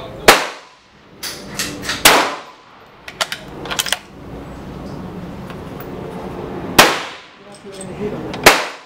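Four sharp rifle shots, each ringing off briefly: one just after the start from a .223 Remington 700 bolt-action rifle, another about two seconds in, one near seven seconds and one near the end. Between the shots come lighter metallic clicks as the bolt is worked.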